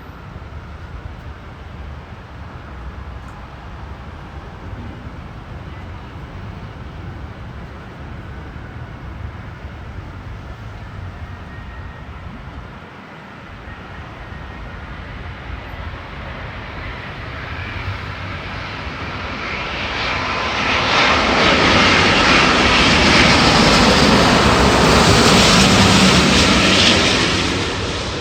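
Airbus A350's Rolls-Royce Trent XWB turbofans heard as the airliner comes in to land: a low rumble that grows louder over several seconds, holds at its loudest for about six seconds as the jet passes, then fades near the end.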